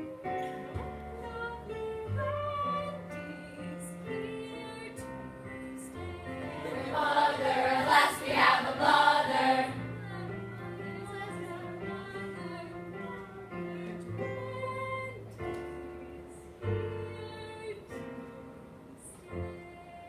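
Music: a song with singing voices over held bass notes and chords, the voices swelling loudest from about seven to ten seconds in.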